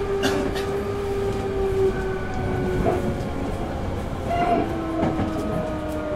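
Running sound inside a Hankyu 8000 series electric train: the whine of its Toshiba GTO VVVF inverter motor drive falls in pitch in steps over the rumble of the wheels. There are a few sharp clicks as the wheels cross rail joints.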